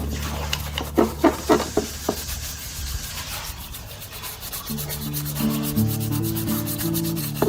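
Hand sanding: a quick series of about six short rubbing strokes around a second in, over steady background music.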